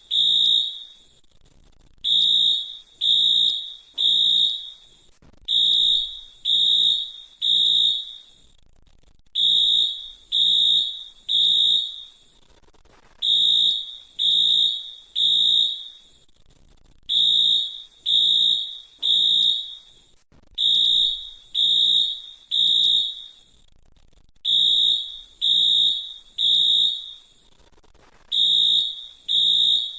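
Fire alarm sounding in the temporal-three pattern: groups of three high-pitched beeps separated by a pause, repeating about every four seconds, the standard signal to evacuate.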